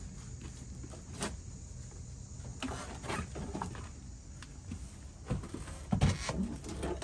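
Scattered knocks, clunks and scrapes as a Honda Spree scooter is handled and shifted among stored clutter, the loudest clunk about six seconds in, over a faint steady low hum.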